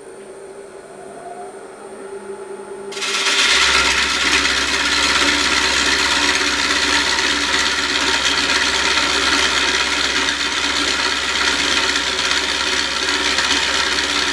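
Bowl gouge cutting the inside of a large, very hard, kiln-dried pecan bowl spinning on a wood lathe. Over the lathe's steady hum, a loud, even cutting noise starts about three seconds in and keeps on without a break.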